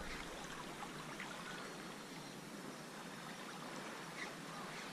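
Calm sea water lapping faintly against shore rocks: a low steady wash with a couple of soft splashes.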